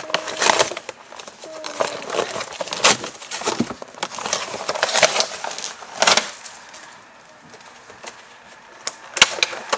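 Action-figure packaging of plastic and cardboard being handled and opened: irregular crackling, clicks and rustles, quieter for a couple of seconds before a few sharp clicks near the end.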